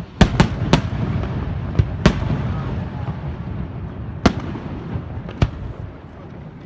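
Fireworks display: shells bursting with sharp bangs, three in quick succession just after the start, then single bangs at about two, four and five seconds, over a continuous low rumble and crackle of further bursts.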